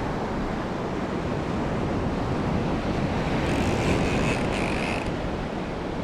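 Rough ocean surf breaking on the beach, with wind buffeting the microphone; the wash swells a little louder about two-thirds of the way in.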